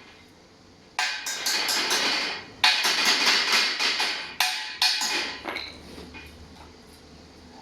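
Torros MIG 200 Pulse semi-automatic MIG welder's arc crackling in several short runs with brief gaps, the first starting about a second in and the last fading out a little after five seconds.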